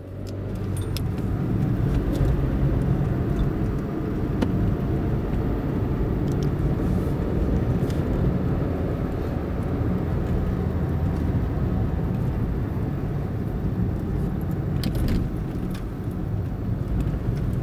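Steady low rumble of a motor vehicle driving along a road, engine and tyre noise, with a few light clicks and rattles. It fades in at the start.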